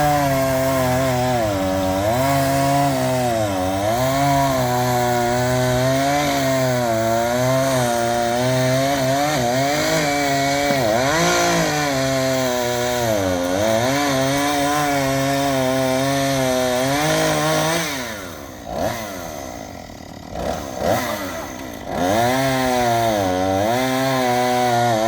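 Gas chainsaw running at high revs, its pitch dipping again and again as it cuts into wood. About 18 seconds in it drops to a lower, uneven run for a few seconds, then revs back up and cuts again near the end.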